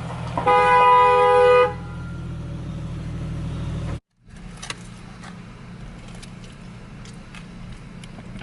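A car horn sounding one long toot of just over a second over a car engine's steady running. About four seconds in the sound cuts off, leaving quieter background noise with a few faint clicks.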